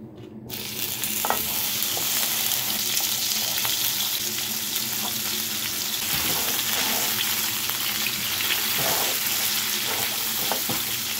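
Beef cubes sizzling in hot oil in a frying pan as they are browned and stirred with a silicone spatula. The sizzling starts suddenly about half a second in and then runs steadily, with a few taps and scrapes of the spatula against the pan.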